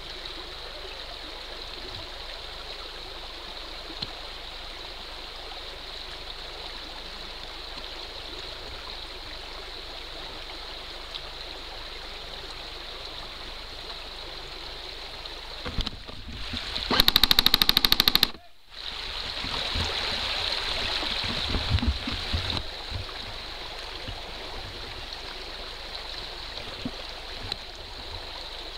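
Steady rushing of a shallow stream close to the microphone. A little past halfway, a loud, fast rattle lasts just over a second and cuts off suddenly, followed by a few seconds of louder splashing and rustling.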